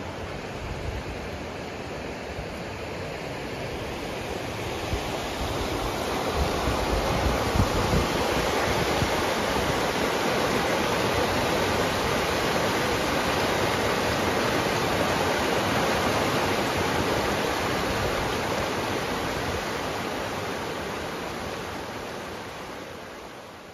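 Fast mountain river running over rapids: a steady rush of whitewater that grows louder over the first several seconds and fades away near the end.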